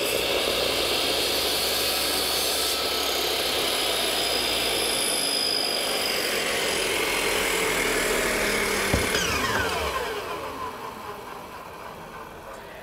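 Miter saw running and cutting thin wooden slats, a steady loud motor and blade noise. About nine seconds in there is a click, and the motor's pitch falls away as it spins down.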